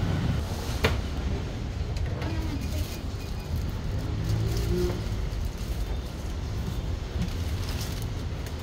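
Street traffic: a steady low rumble of passing vehicles, with one sharp click about a second in.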